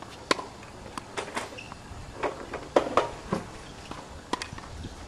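Tennis racket striking balls and balls bouncing on a hard court during forehand practice: a quick run of sharp pops and knocks, loudest about three seconds in.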